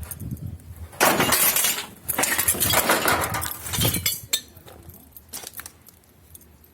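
Loud clattering of hard objects knocking and scraping together, in two spells: about a second long, then, after a brief pause, about two seconds long.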